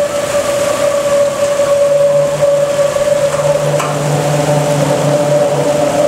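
Water rushing through a concrete overflow channel, with a steady hum of several pitches over it; a deeper hum joins about two seconds in.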